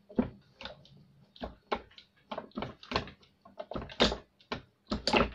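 Hand-pumped hydraulic crimping tool being worked through a crimp: a string of irregular clicks and knocks from the pump handle and mechanism, the loudest about four seconds in and near the end.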